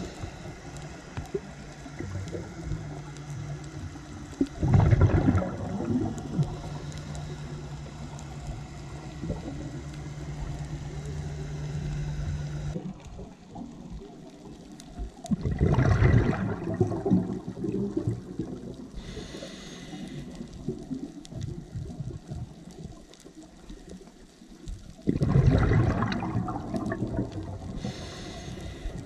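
Scuba diver's exhaled breath bubbling out of the regulator underwater, three rushes of bubbles about ten seconds apart. During the first half there is a steady low hum that stops suddenly about thirteen seconds in.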